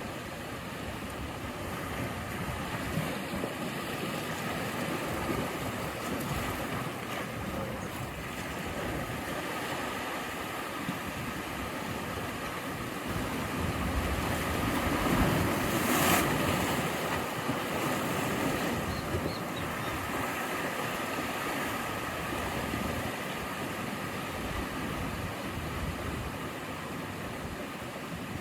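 Sea waves washing steadily on the shore, with one larger wave breaking louder about halfway through.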